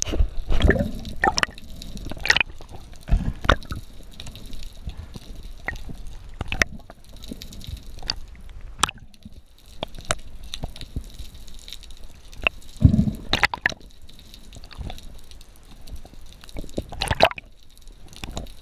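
Underwater sound as picked up by a diver's camera: scattered sharp clicks and pops, with a few louder low surges of water and bubble noise, the loudest about thirteen seconds in.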